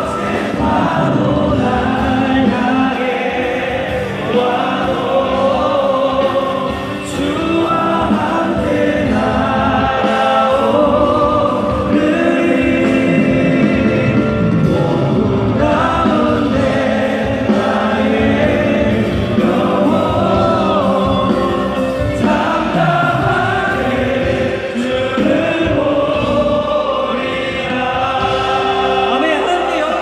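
A very large crowd of young soldiers singing a Christian praise song together over amplified worship music, led by a singer on a microphone. The singing is steady and loud, with the echo of a big hall.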